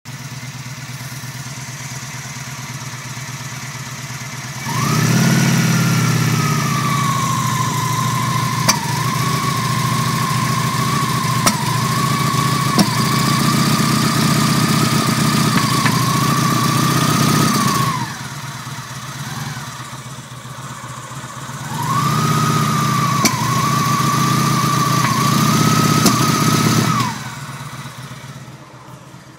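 Engine with a misfire, idling and then revved up and held twice for several seconds each, a whine rising with the revs. A few sharp ticks come through while it is held up, and the engine drops back to idle in between.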